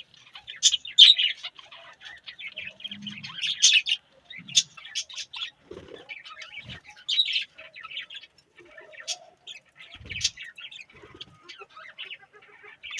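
A flock of budgerigars chirping and chattering continuously, in many short, rapid warbling calls, with a few soft thumps mixed in.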